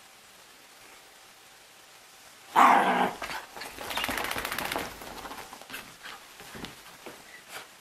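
Wet Yorkshire terrier puppy barks once, loudly, about two and a half seconds in, followed by about a second of rasping noise and then scattered scuffling as it dashes about the sofa in its post-bath frenzy.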